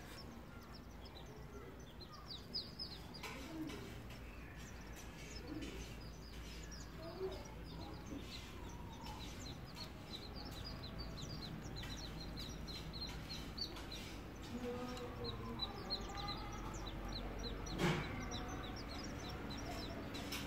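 Muscovy ducklings peeping as they feed: a continuous stream of short, high, falling peeps, several a second. Near the end comes one sharp knock.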